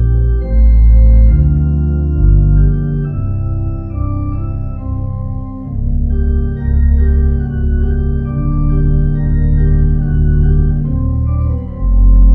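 Church organ playing the postlude: sustained chords over deep bass notes, changing every second or two.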